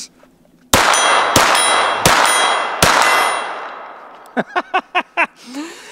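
Four suppressed .22 LR pistol shots from a Volquartsen Scorpion, about two-thirds of a second apart, each met by the clang of a hit steel target. The ringing of the steel carries on and fades out over about a second and a half after the last shot.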